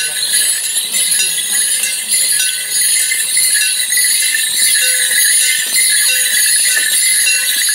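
Morris men's leg bells jingling steadily as they walk, with people talking in the background.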